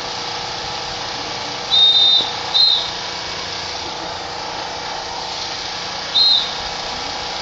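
Whistle blasts used as drill signals: three short, shrill blasts, a longer one about two seconds in, a quick one just after it, and another about six seconds in, over steady background noise.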